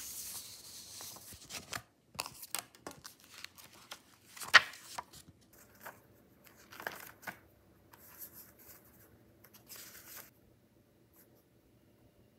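Sheets of paper and notebook pages being handled and flipped: irregular rustling and crinkling with sharp paper snaps, the loudest about four and a half seconds in. The rustling stops about ten seconds in.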